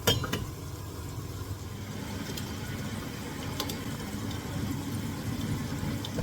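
Pot of rice and mung dal for kichuri boiling on the stove: a steady low bubbling rumble, with a few light clinks of a utensil against the pot near the start and a few seconds in.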